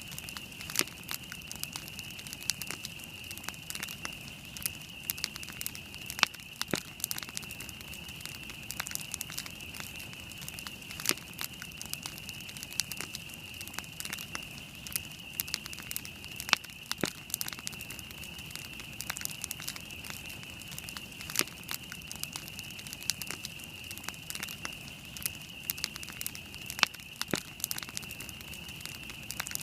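Wood campfire burning, with frequent irregular sharp crackles and pops, a few much louder than the rest. A steady high-pitched hiss runs underneath.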